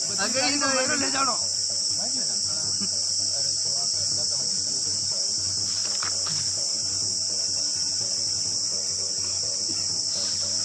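A steady, high-pitched insect chorus buzzing without a break, with a person's voice briefly in the first second or so.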